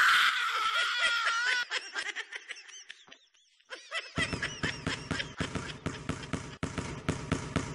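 A woman's long, high, wavering scream, then a short break and a run of rapid, choppy vocal cries.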